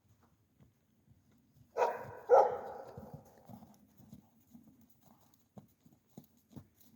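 An animal calling loudly twice, about half a second apart, the second call trailing off over about a second. A few faint low knocks follow.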